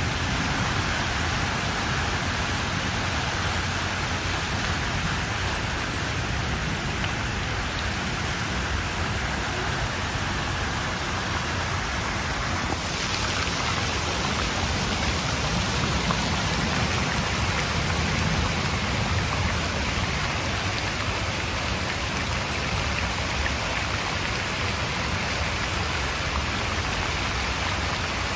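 Plaza water fountain splashing steadily: jets arcing back into the pool and water spilling over the basin's edge into the channel below. About halfway through the hiss of the splashing turns brighter as the spill-over cascades come close.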